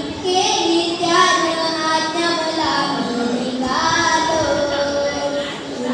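A young boy singing a devotional song in phrases of a second or two, with held notes that bend and slide in pitch.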